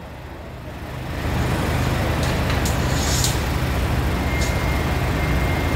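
Forklift engine throttling up about a second in and then running steadily under load as it carries a heavy machine, with a few light clicks or knocks in the middle.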